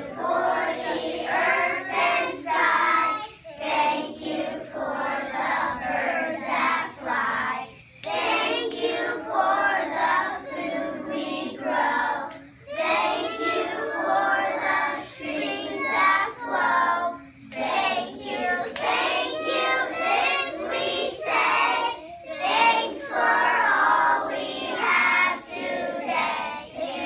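A class of kindergarten children singing a song together, in phrases of a few seconds with short breaks between them.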